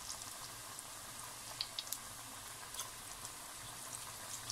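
Battered spinach pakoras deep-frying in a kadai of hot oil: a quiet, steady sizzle with scattered sharp crackles.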